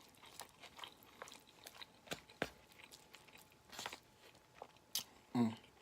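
Close-miked chewing and mouth sounds of a person eating, with scattered wet clicks and a few sharper crunches, the clearest about two and a half and five seconds in.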